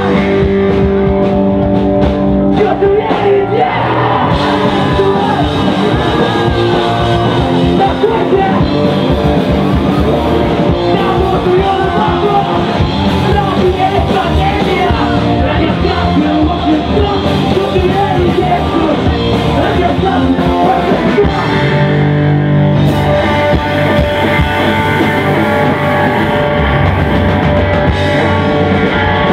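Live rock band playing loud, with electric guitars, bass and drums, and a singer singing over them.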